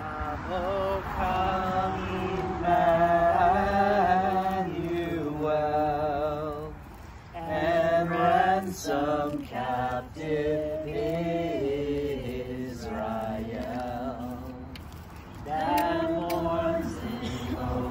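Singing of a rewritten version of a popular Christmas song, slow and sustained, led by a man's voice.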